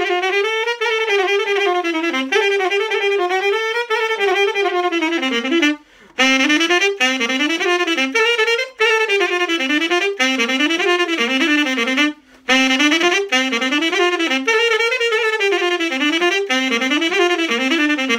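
Solo saxophone playing a fast, ornamented Romanian Ardeleana folk dance tune in the old style, with quick turns up and down the melody. It breaks off briefly for a breath about 6 seconds in and again about 12 seconds in.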